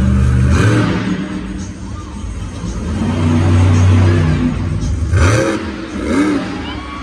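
Monster truck's supercharged V8 engine revving hard, its pitch rising and falling several times.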